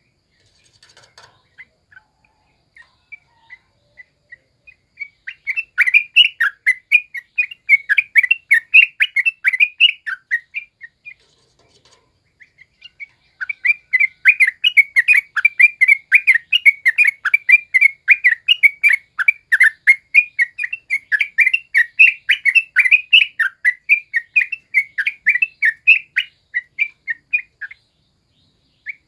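Yellow-vented bulbul singing its wild-type chattering song: a few scattered notes, then two long runs of quick bubbly notes, about four a second, broken by a short pause about eleven seconds in.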